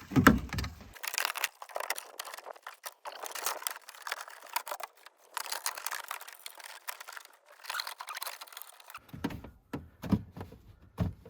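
Plastic battery covers being handled and fitted back into place: an irregular run of rustles, crinkles and light clicks.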